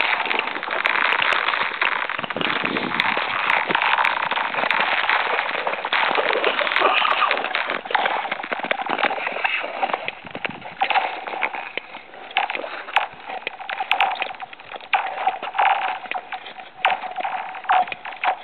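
Ice skate blades scraping and crackling on thin new lake ice, about 4 cm thick, with many sharp clicks and ticks through the strokes.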